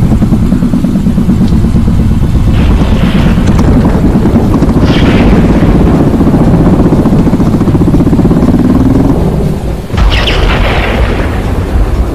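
Dense, deep rumbling soundtrack drone with thunderclaps cutting through it. A low rising tone comes in near the end of the drone, which drops away briefly before the loudest crack about ten seconds in.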